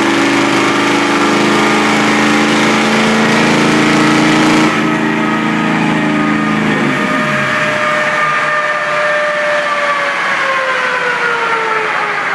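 Ford 7.3L IDI naturally aspirated V8 diesel held at steady high revs under full load on a chassis dyno; about five seconds in the throttle comes off and the engine note drops away. A whine then falls slowly in pitch as the drivetrain and dyno rollers coast down.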